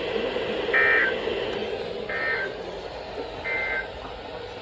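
NOAA Weather Radio end-of-message SAME data bursts: three short, identical warbling data squawks about 1.3 seconds apart over radio hiss. They mark the end of the severe thunderstorm warning broadcast.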